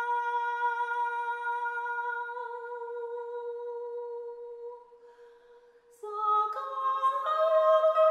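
Wordless singing in long, steady held notes with a pure, humming-like tone. The first note fades out a little before halfway, followed by a second of near silence; then new held notes enter together as a chord and step upward.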